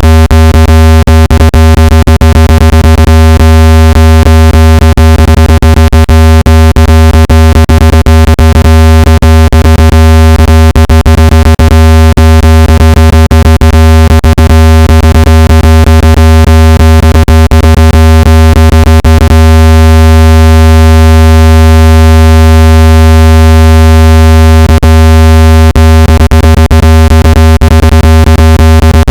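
Synthesized speaker water-eject tone: a very loud, steady, low humming tone with even overtones, played at full volume to vibrate water out of a phone or earbud speaker. A rapid crackle of clicks runs through it, dropping away for several seconds about two-thirds of the way in.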